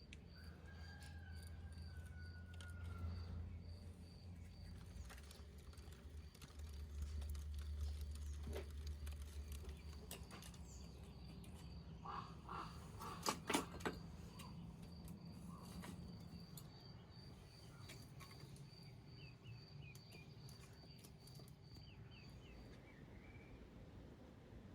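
Faint outdoor ambience with birds calling now and then: a short falling call near the start and high chirps later on, over a low rumble. A few sharp knocks come about halfway through.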